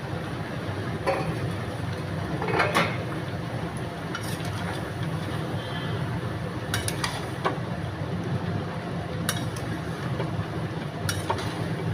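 Metal kitchen utensils clinking against a cooking pot now and then, several separate clinks over a steady low hum.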